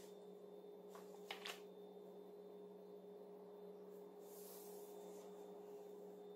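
Near silence over a steady low hum, with a few faint, brief rustles of a paper sewing pattern being laid and smoothed on fabric, about a second in and again a little past the middle.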